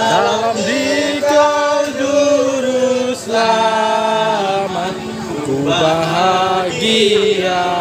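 Hymn singing in Indonesian: a slow Christian hymn sung in phrases of long held notes.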